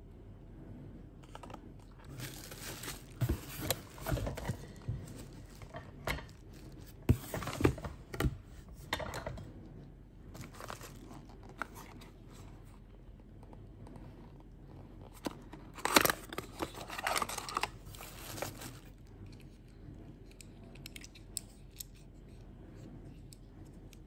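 Small cardboard toy boxes and packaging being handled and opened by hand: rustling, crinkling and scraping of card in two spells of sharp crackles, the first a couple of seconds in and the second, with the loudest crackle, a little past the middle.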